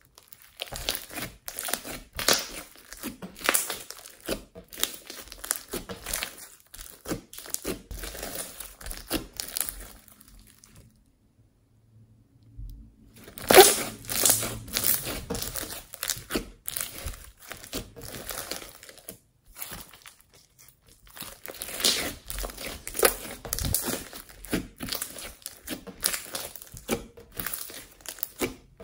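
Hands squishing, stretching and pressing glossy slime mixed with foam beads, giving a dense stream of sticky crackling and popping clicks. The sound stops for a couple of seconds about ten seconds in, then resumes with a loud snap.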